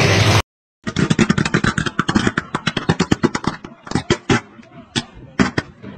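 A loud, steady rushing noise cuts off abruptly about half a second in. After a brief gap, the burning wall-mounted electrical box makes rapid, sharp crackling and popping: the arcing of a short circuit. The pops come thick and fast at first and grow sparser near the end.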